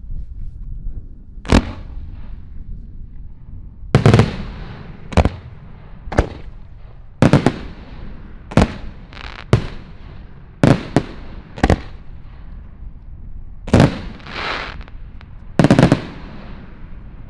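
Aerial fireworks bursting: about a dozen sharp bangs at irregular intervals, some in quick pairs, each trailing off with an echo.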